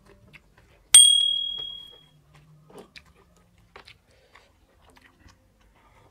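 A bright notification-bell ding from a subscribe-button animation about a second in, one ring fading out over about a second. Faint chewing and eating noises follow.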